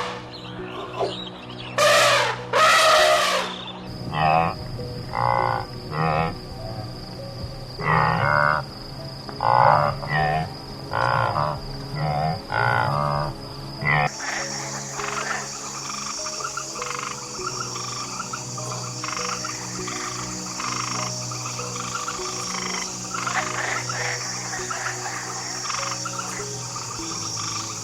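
Frogs croaking, one call about every second, over a steady high insect drone that shifts higher and starts pulsing about halfway through.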